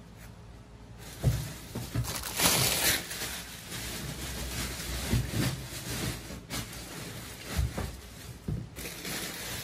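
Rustling and handling of plastic parts packaging and pieces, with scattered knocks and low thuds, starting about a second in.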